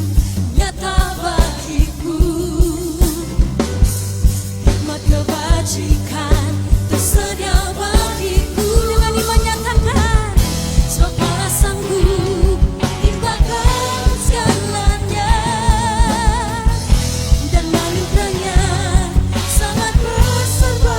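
Live church worship band playing a praise song, with drums keeping a steady beat of about two hits a second under singing and wavering lead lines.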